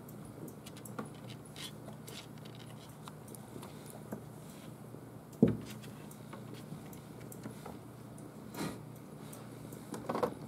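Young kittens playing on a wooden floor: scattered light taps and scrabbles of paws and toys, with one sharp thump about five and a half seconds in, over a steady low hum.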